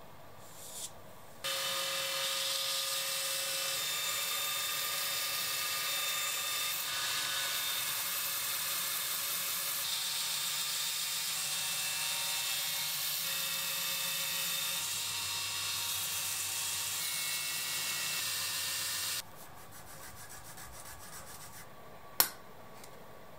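Belt grinder running with a knife handle piece pressed against the abrasive belt: a steady, high grinding hiss with a few held tones, starting and stopping abruptly. A single sharp click comes near the end.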